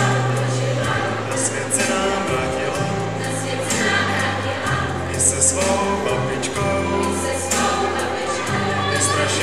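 Music: a song sung by a group of voices over a bass line that moves to a new note about every second.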